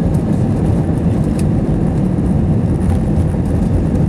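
Cabin noise of an Airbus A320-232 heard from a seat over the wing during its takeoff roll: the IAE V2500 turbofans at high thrust and the run along the wet runway make a loud, steady low rumble.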